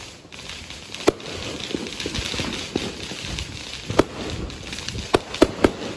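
Consumer fireworks going off: a sharp bang about a second in, another about four seconds in and three quick bangs near the end, with steady crackling from the bursting shells in between.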